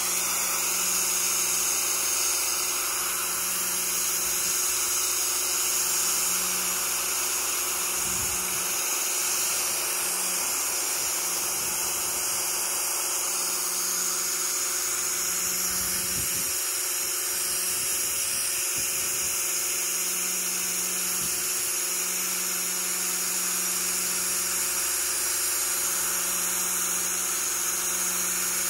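Pressure washer running steadily: its pump humming under the hiss of the high-pressure jet spraying grime off a canoe hull.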